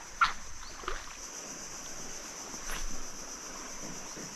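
Steady high-pitched insect drone over a low outdoor hiss, with a few faint knocks or splashes.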